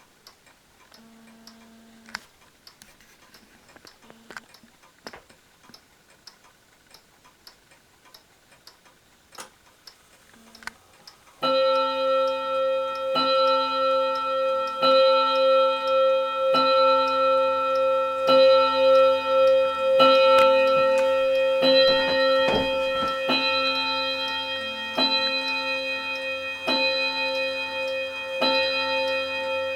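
Wall clock ticking faintly. About a third of the way in, its automaton figure of a man starts striking a bell for the hour: one ringing stroke about every 1.7 seconds, each ringing on into the next, about eleven strokes.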